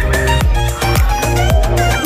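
Upbeat dance music with a steady kick-drum beat, about two beats a second, under sustained held notes.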